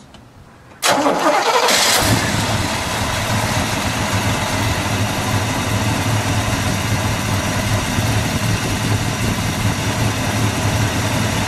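1964 Pontiac GTO's 389 cubic-inch V8 with tri-power carburettors starting: a brief crank about a second in, the engine catches, then settles into a steady idle.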